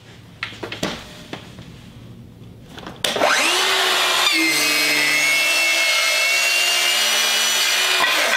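Festool HKC 55 cordless 18-volt circular saw, fitted with a 32-tooth blade and running on its rail: a few light handling knocks, then about three seconds in the motor starts with a rising whine and the blade cuts through a wooden skirt board for about five seconds, stopping near the end.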